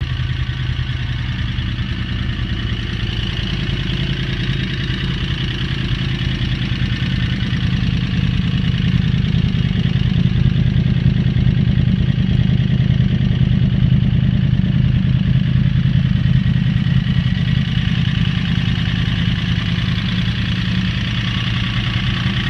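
2009 Yamaha R1's inline-four engine idling steadily with an annoying loud mechanical noise, swelling a little in the middle and settling back. The owner suspects the APE manual cam chain tensioner may be set too tight.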